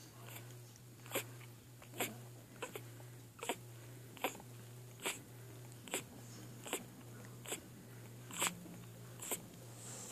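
A nursing bull terrier and her three-day-old puppies making short, sharp snuffling noises at a steady pace, a little more than one a second, over a steady low hum.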